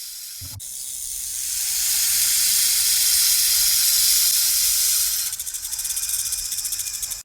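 A snake hissing: one long hiss that swells about a second in, holds for several seconds, then breaks into rapid pulses near the end.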